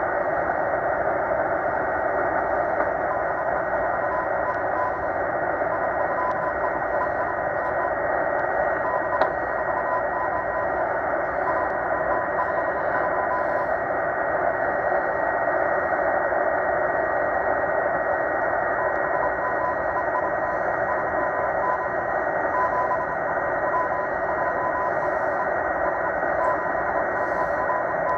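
Shortwave receiver in upper-sideband mode hissing with static, with a steady high whistle and a faint Morse code tone keying on and off beneath the noise: the weak CW signal of the M12 number station.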